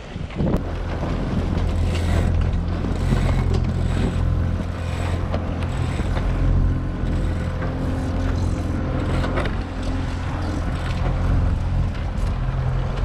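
Sailboat's motor running steadily with a low, even hum, while the mainsail rustles and flaps as it is hoisted up the mast, with wind on the microphone.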